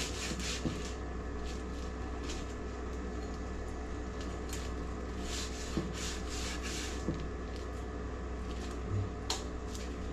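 A knife cutting food on a cutting board: irregular light knocks and scrapes over a steady electrical hum.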